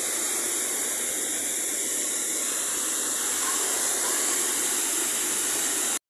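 Düden waterfall's falling water rushing steadily, an even noise with no breaks.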